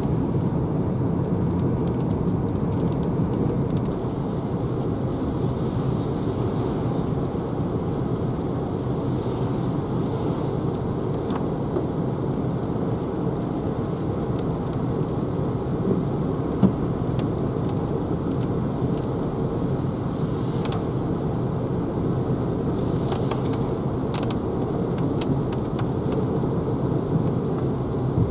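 Steady in-cabin noise of a Renault Zoé electric car cruising at about 82 km/h on a wet road: tyre noise on the wet surface and rain on the car, with a few short ticks.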